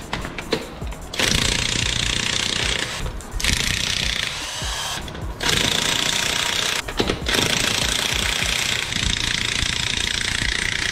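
Corded electric impact wrench hammering off the lug nuts of a car's front wheel, running in several long bursts with short pauses between them.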